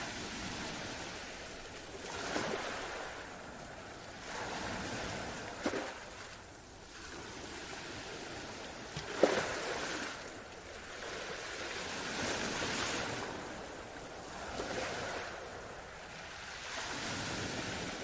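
Ocean surf: waves washing in and drawing back in slow swells of noise every two to three seconds, with two brief sharp cracks, the louder about halfway through.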